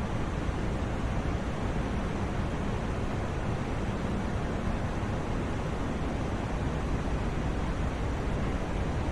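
Steady generated white noise for sleep: an unchanging rushing hiss, heavier in the low end and fading toward the top, with no breaks or events.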